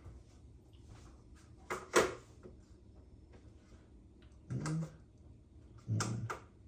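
Kitchen items being handled and set down on a countertop, with one sharp knock about two seconds in and two shorter, duller knocks later.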